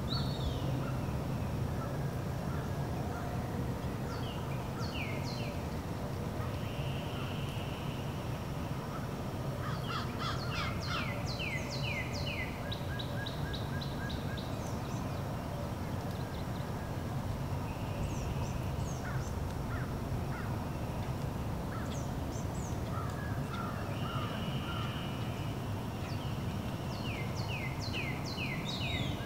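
Wild birds calling and singing, with several runs of quick, repeated downward-sweeping whistled notes and a few short trills, over a steady low rumble.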